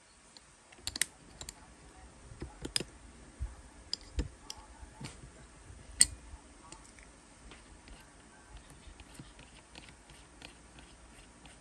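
Scattered small clicks, taps and a few low knocks as hands handle a DeWalt DCS438 cut-off tool, turning its cutting wheel and fitting a hex key to the wheel's arbor bolt; the sharpest click comes about six seconds in.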